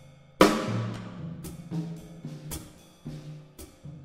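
Solo drum kit played with sticks. A loud crash with a long ringing decay comes about half a second in, followed by separate tom and snare strokes, each drum ringing at a low pitch.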